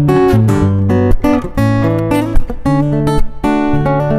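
Gusta GDX130C dreadnought acoustic-electric guitar (solid Sitka spruce top, rosewood body) played plugged in through its Fishman ISY301 pickup, running through a chord progression with notes struck several times a second over changing sustained bass notes.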